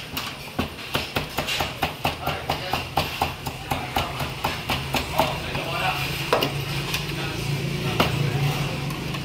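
Heavy Chinese cleaver chopping roast meats (roast pork and char siu) on a wooden chopping board: a rapid run of sharp chops, about three a second, through the first half, then a few spaced strikes.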